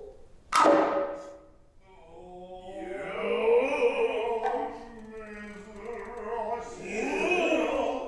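Noh music: a sharp hand-drum stroke about half a second in, then long, drawn-out sung voices whose pitch bends slowly.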